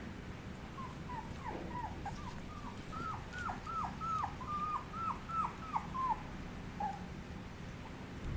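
A Chihuahua puppy whimpering: a quick run of short, high-pitched whines, louder in the middle, tailing off with one last whine near the end.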